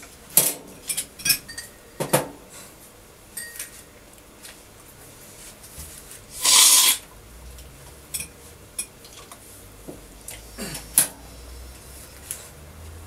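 Cupping spoons clinking against ceramic cups during a coffee cupping, with scattered light clinks and one loud slurp of coffee from a spoon about six and a half seconds in.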